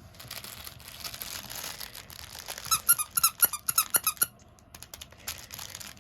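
Squeaky dog toy squeezed rapidly, about eight short high squeaks in a second and a half near the middle, with scuffling and rustling around them.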